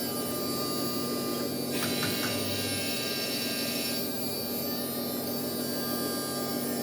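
Steady electrical hum made of several steady tones. A hiss joins it about two seconds in and lasts about two seconds, with a few light clicks as it starts.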